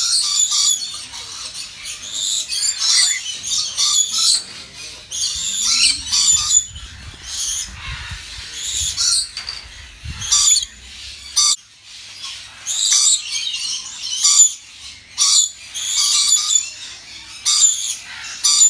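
A flock of lorikeets calling, a busy run of short, shrill screeches one after another with brief gaps.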